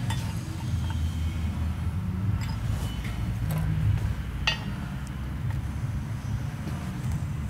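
A few light metal clicks and taps as a steel wedge and a small level are worked against a socket olet tacked on a steel pipe, over a steady low background hum.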